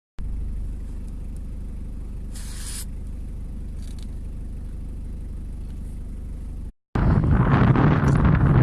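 A steady low rumble with a brief hiss about two and a half seconds in, cutting off suddenly near the end. Then louder gusty wind buffeting the microphone.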